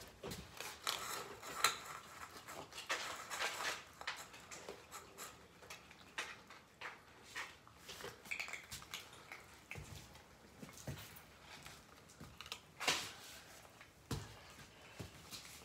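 Irregular light clicks, taps and rustling of cat food bowls and dry cat food, with a few sharper knocks, the loudest about thirteen seconds in.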